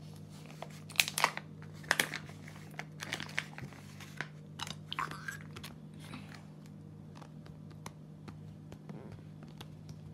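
Hands pressing and working sticky toy slime (jammies) onto a squishy: scattered short sticky clicks and crackles, busiest in the first few seconds, over a steady low hum.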